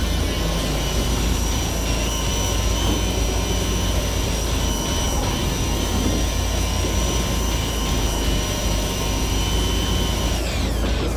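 A small motor whines steadily over a low engine rumble. Near the end the whine falls in pitch and stops.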